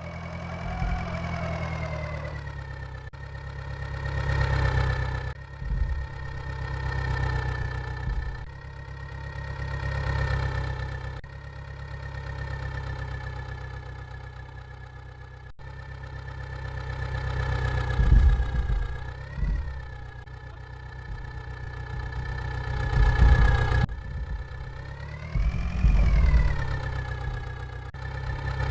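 Vehicle engine running, its pitch and loudness repeatedly rising and falling as it revs up and settles back, with a few abrupt cuts in the sound.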